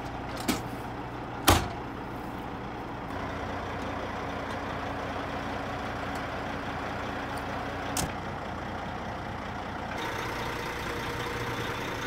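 Diesel engine of a heavy-duty tow truck running steadily, with two sharp knocks about half a second and a second and a half in, the second one loud, and a smaller knock near eight seconds.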